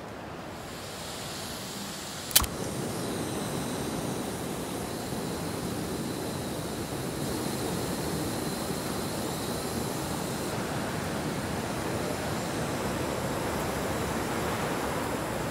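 Steady wind noise that grows slightly stronger, with one sharp click about two and a half seconds in.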